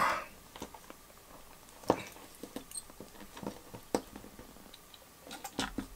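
Small clicks, taps and scrapes of a clear acrylic CPU water block and its metal mounting posts being handled and fitted together, with a short rustle at the start and sharper clicks about two and four seconds in.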